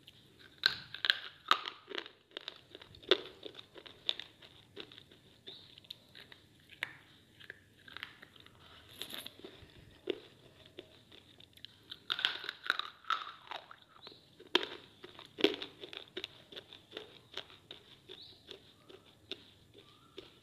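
A person biting and chewing a bar of white edible slate: sharp, dry crunches as pieces snap off, coming in bunches with quieter chewing crunches between.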